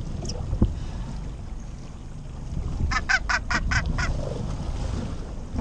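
Northern gannet caught by the foot on a trolling lure, giving a quick run of six harsh calls, about five a second, some three seconds in. A sharp knock comes about half a second in, over steady wind and sea noise.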